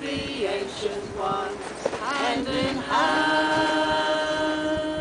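A group of voices singing a ritual song together, ending on one long held note from about three seconds in.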